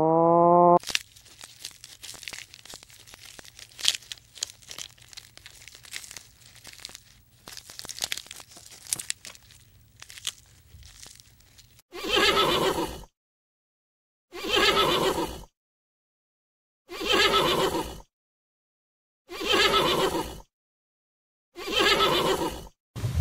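An animal call rising in pitch, cut off about a second in, followed by a long stretch of dense crackling clicks. Then five evenly spaced animal calls of about a second each, with silence between them.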